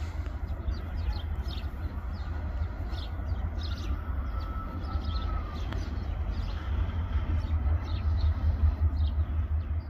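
Small birds chirping in short, repeated calls over a steady low rumble.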